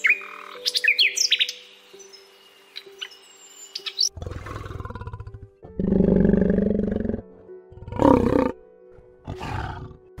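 A few quick bird chirps, then a series of four deep, rough animal calls, each up to about a second long with short gaps between; the second call is the loudest.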